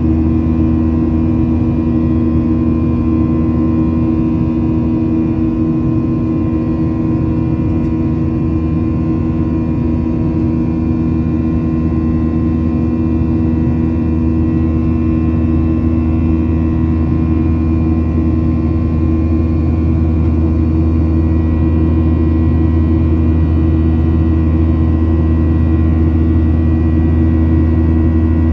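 Cabin noise of a Boeing 737-900ER in its climb, heard from a window seat beside the wing: the CFM56-7B turbofans' steady drone, a deep hum with a few steady whining tones over the rush of air.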